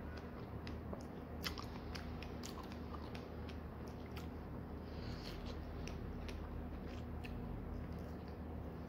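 A person biting into and chewing ripe fresh strawberries, with many short wet mouth clicks scattered throughout.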